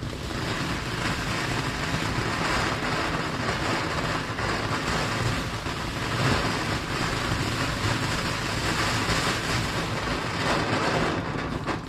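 Firework giving off a dense, continuous crackle of many tiny pops for about twelve seconds, cutting off suddenly near the end.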